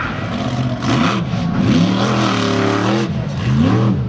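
Grave Digger monster truck's supercharged V8 engine revving hard in repeated surges, pitch rising and falling several times and held high for about a second midway, as the truck stands up on the crushed cars and drives off.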